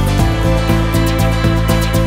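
Background music with a steady beat of about four strokes a second under sustained chords; the chord changes just after the start.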